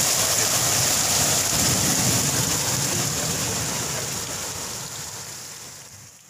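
Heavy rain pouring down in a steady rush, fading out over the last three seconds or so.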